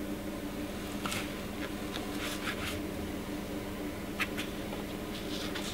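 A few faint scratches and clicks of T-pins being pushed through a stretchy wig cap into a mannequin head, over a steady low hum.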